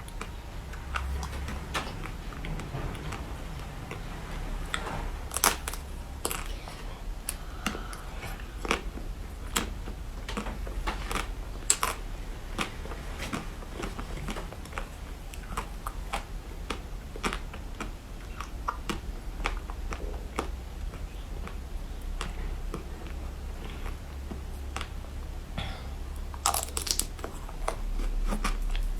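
Close-miked eating of seafood: chewing, with many sharp crackling clicks and crunches at an uneven pace, over a steady low hum.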